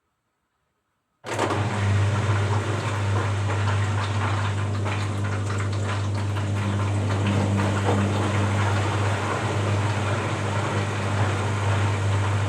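Washing machine running with a loud, steady motor hum and rushing noise, cutting in abruptly about a second in.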